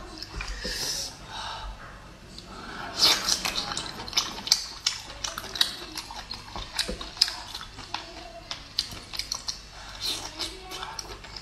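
Close-up eating of braised abalone: from about three seconds in, a dense irregular run of sharp, wet mouth clicks and smacks as the abalone is bitten and chewed.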